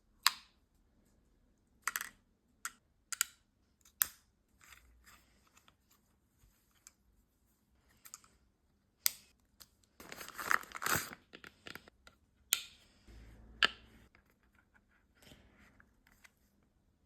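Box and packaging being handled and opened: a string of sharp clicks and taps, with a burst of crinkling and tearing of packaging about ten seconds in.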